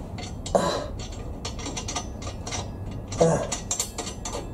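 Irregular light metallic clicking and ticking as a handmade steel exhaust pipe is handled and fitted to its hanger bracket. Two short grunts come about half a second in and just after three seconds.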